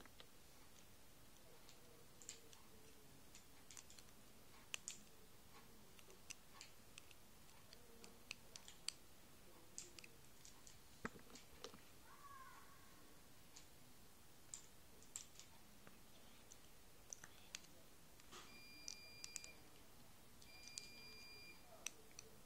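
Faint, scattered small clicks and taps of rubber loom bands being lifted with a hook over two pens. Near the end, two short, steady high tones about two seconds apart.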